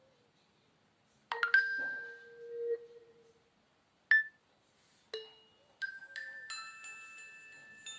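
Preloaded tones of a Nokia Lumia 520 playing: a struck, chime-like tone a little over a second in, a short ping around four seconds, then a run of bell-like mallet notes that ring on and overlap.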